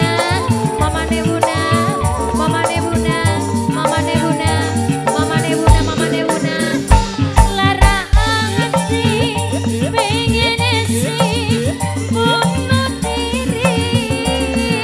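Live dangdut music: a female singer with a wavering vibrato over a band with a steady drum beat and rattling percussion.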